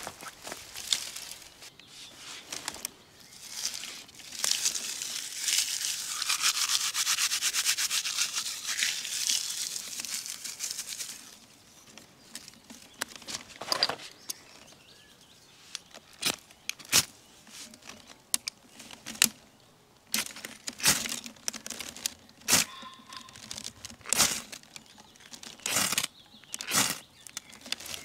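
Dry twigs being handled and snapped while kindling is readied for a campfire: a long, dense crackling rustle in the first part, then a series of separate sharp snaps.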